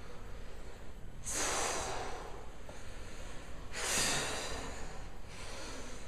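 Two forceful exhales, each a hissing breath out about a second long, roughly two and a half seconds apart, from people breathing hard as they throw punches.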